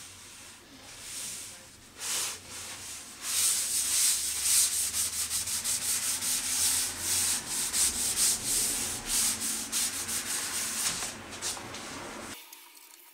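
Paper towel rubbed in fast back-and-forth strokes over the face of a plane-wood bowl, wiping in an oil finish by hand: a scratchy hiss that starts about three seconds in and cuts off suddenly near the end.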